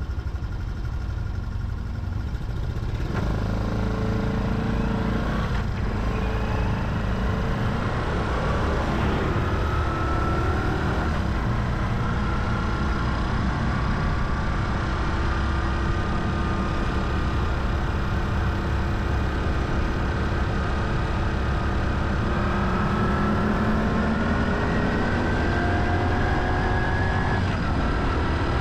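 Honda Hunter Cub's small single-cylinder engine running under way, its pitch climbing slowly and dropping back several times as it shifts and changes speed, with a steady rush of wind and road noise under it.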